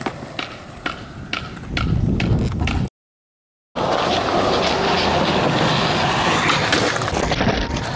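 Skateboard on concrete: a few sharp clacks of the board, then wheels rolling. The sound cuts out completely for under a second a little before halfway, then steady rolling noise of wheels on concrete.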